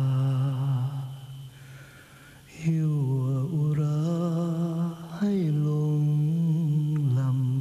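Slow Thai love ballad: a single voice holds long, slow notes, wavering slightly in places. It fades away briefly about a second and a half in, then comes back.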